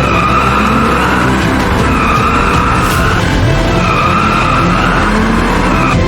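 Car tyres screeching in a drift, in three long stretches of steady squeal, over background music.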